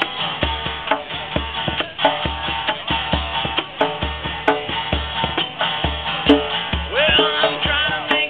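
Acoustic guitar strummed with a hand drum keeping a steady beat of deep strokes, live acoustic duo music.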